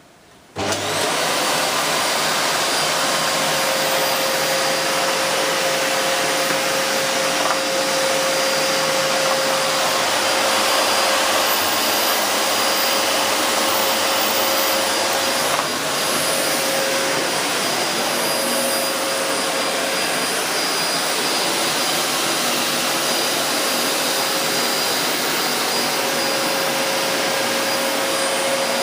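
LG VC1016NNT compact bagless cylinder vacuum cleaner switching on about half a second in, then running steadily: an even rushing of air with a steady mid-pitched whine from the motor.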